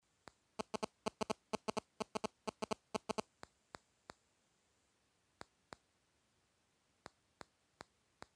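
A run of sharp clicks over an almost silent background. For the first three seconds they come in quick pairs and triplets, then they thin out to single clicks every half second or so.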